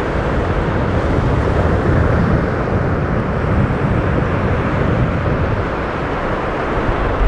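Wind buffeting the microphone in a steady, uneven low rumble, with ocean surf washing behind it.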